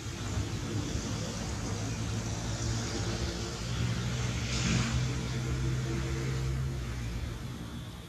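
Low hum of a motor vehicle's engine passing by, growing louder toward the middle and fading near the end, with a brief rustling rush partway through.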